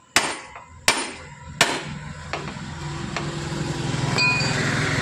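Hammer blows struck from below on a motorcycle's steering stem to seat new steering-head bearing cones and ball races: three sharp, ringing metallic strikes in the first two seconds, then a couple of lighter taps.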